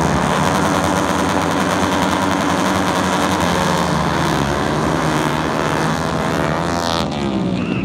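A pack of flat-track racing motorcycles revving at the start and accelerating away together off the line. Many engines run at once, their pitch bending up and down as they launch, and the sound thins out near the end as the pack pulls away.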